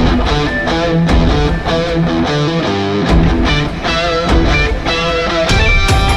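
Rock music with electric guitar and drums, starting abruptly.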